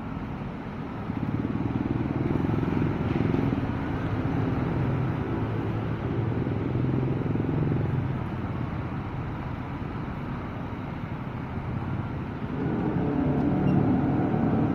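Motorcycle engine and road noise as the bike rides between cars in slow traffic. The engine picks up about a second in, eases off around two thirds of the way through, and picks up again near the end.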